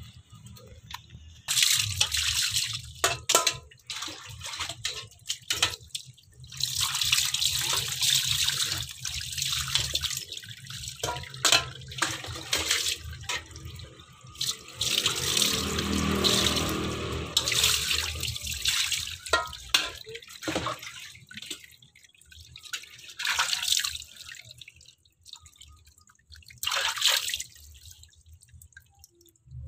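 Water splashed and poured by hand over a soapy cat's fur in a wire cage, in repeated bursts of a few seconds with short pauses between, and a few sharp clicks.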